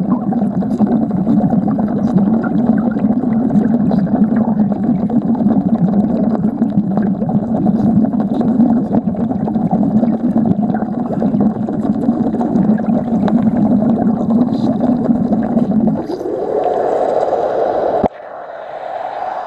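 Underwater wet welding arc, heard through the water: a steady, loud buzzing and bubbling hiss as the electrode burns against the steel plate. About sixteen seconds in it rises in pitch, then cuts off sharply near the end as the arc is broken.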